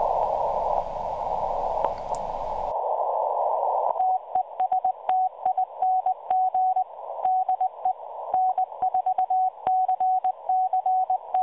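Shortwave receiver hiss in a narrow CW filter. From about four seconds in, a Morse code (CW) signal comes up: a single steady tone keyed in dots and dashes, standing clearly above the hiss. It is a 25-watt transmission on the 40-metre band, heard on a receiver about 250 miles away.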